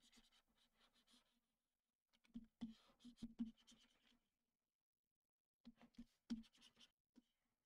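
Faint taps and scratching of a pen stylus on a graphics tablet, in two short clusters.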